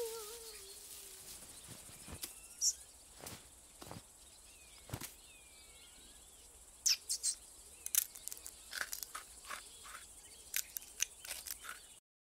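Faint cartoon countryside ambience: soft hiss with distant bird chirps, and scattered small clicks and rustles that come thicker in the second half. The tail of a pitched vocal sound fades out at the very start, and the sound cuts off to silence right at the end.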